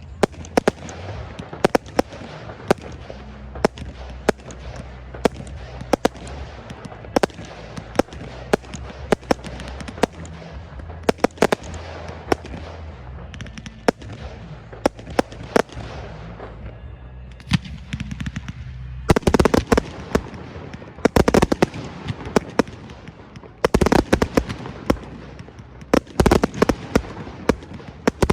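Fireworks display: a steady run of shell bursts and bangs over a low rumble, breaking about 19 seconds in into dense volleys of rapid crackling reports.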